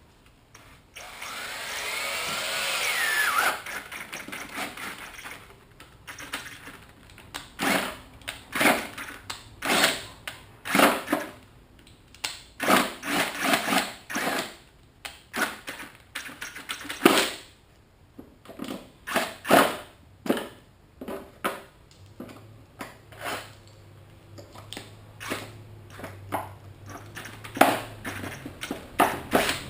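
Power drill with a 1¼-inch bit boring a hole into the boat's plastic hull. It runs once for a couple of seconds with its pitch rising and falling, then in many short trigger bursts as the bit works into the foam-filled hull.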